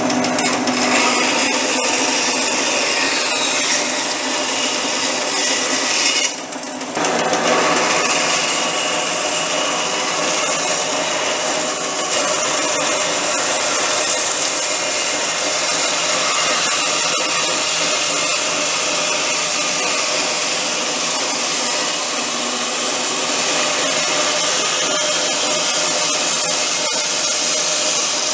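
Bandsaw running and ripping lengthwise through a round log with the bark still on, the blade cutting a flat along its side. The cutting noise is steady, with a brief drop about six seconds in.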